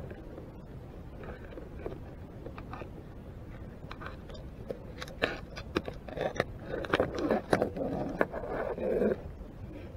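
Green shore crab's legs clicking and scraping against the underwater camera housing: scattered sharp clicks from about four seconds in, building to a dense run of scrapes and knocks that stops about a second before the end, over a steady low underwater rumble.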